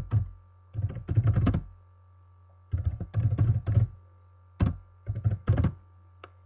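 Computer keyboard typing: four short bursts of fast keystrokes with pauses between them, over a steady low hum.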